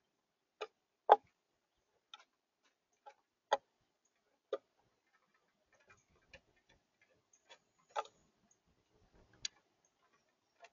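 Mourning dove pecking at seed on a platform feeder: sharp, irregular taps, about ten of them, the loudest about a second in.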